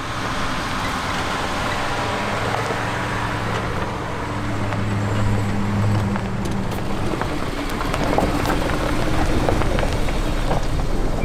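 Nissan Frontier PRO-4X pickup's V6 engine driving slowly past on a dirt forest trail, its hum swelling as it passes about halfway through and then fading. Tyres crunch on gravel in the second half as a Subaru Crosstrek follows behind.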